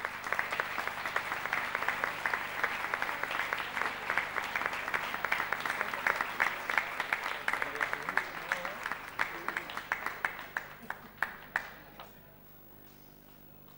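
Audience applauding: dense clapping that thins to a few scattered claps and stops about twelve seconds in.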